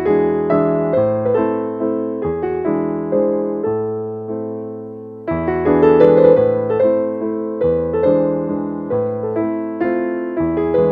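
Background piano music: single notes and chords struck in an even pulse, each one dying away. It fades to a lull about four seconds in, then comes back louder a second later.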